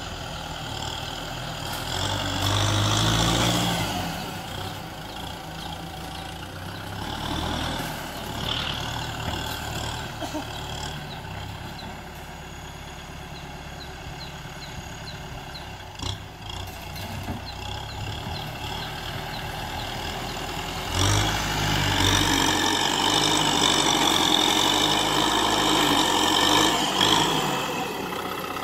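Kubota M6040SU tractor's diesel engine running as the tractor pushes sand with its front blade. It swells louder for a moment about three seconds in and again for the last several seconds.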